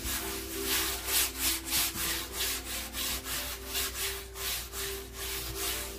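Gloved hand rubbing a thin coat of acrylic paint across a stretched canvas, a rhythmic swishing of about three strokes a second.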